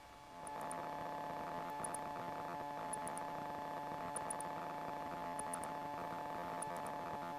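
Faint, steady drone of a light aircraft's engine and cockpit noise heard through the headset intercom, coming up about half a second in. Faint electrical clicks repeat in small clusters about every second.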